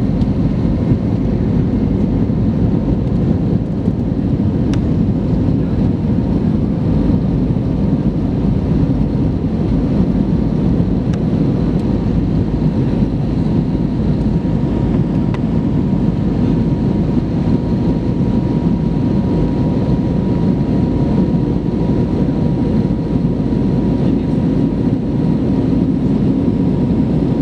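Airbus A320neo cabin noise during the climb after takeoff: the steady rumble of the engines and the airflow, heard from inside the cabin beside the wing. A faint, steady, higher hum runs through it.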